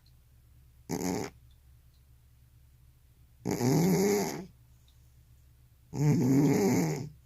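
Elderly cat snoring in its sleep: a short snore, then two longer, pitched snores about two and a half seconds apart.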